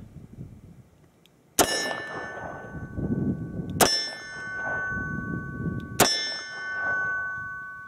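Three shots from a Smith & Wesson 686 Plus .357 Magnum revolver, a little over two seconds apart. Each shot is followed by the clear ring of a steel silhouette target being hit, and the ringing lasts until the next shot.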